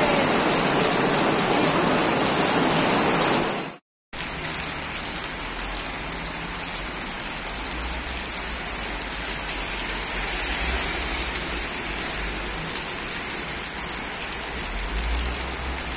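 Heavy rain falling on paving and a wet street, a dense steady hiss. It cuts out for a moment about four seconds in, then carries on a little quieter with a low rumble underneath.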